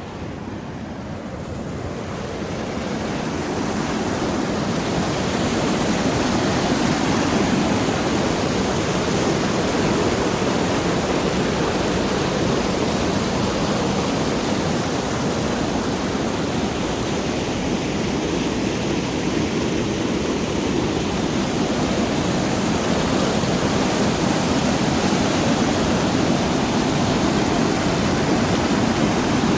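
Steady rush of flowing water, growing louder over the first few seconds and then holding steady.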